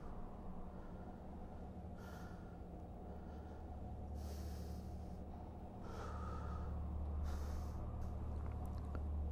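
A man breathing heavily, a loud breath every two seconds or so, over a steady low hum that grows louder about halfway through.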